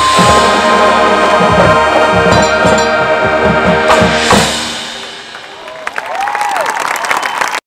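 Marching band brass and drums playing a loud held passage with rapid drum hits, ending about four and a half seconds in and dying away; applause and cheering from the crowd follow near the end, cut off suddenly.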